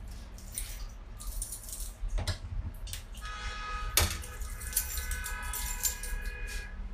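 Clicks, clinks and scraping of pliers working a tight plastic drain-filter plug on a front-loading washing machine. In the second half a steady high tone of several pitches is held for about three seconds.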